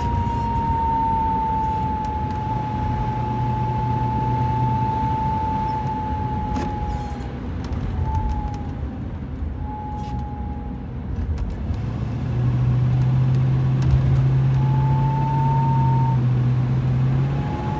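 A steady high whistle from a 1972 Mercedes-Benz 350SE (W116) driving at about 60 km/h, heard from inside the cabin over the road and engine noise. The whistle holds for the first seven seconds or so, then comes and goes in short snatches and returns near the end, while a low hum grows louder in the later part. The owner finds it is not wind or the ventilation and does not follow engine speed: it persists in neutral and with the car on a lift. Its cause is unknown.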